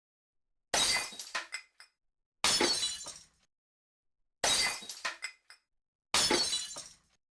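Glass smashing four times, about every two seconds: each a sudden crash that fades over about a second into scattering shards, with a few small late clicks. The smashes are near-identical, the same sound effect looped.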